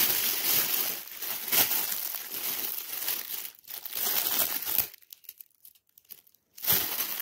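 Metallic foil gift wrap crinkling and rustling as hands pull it open, with a short pause about five seconds in before the crinkling starts again.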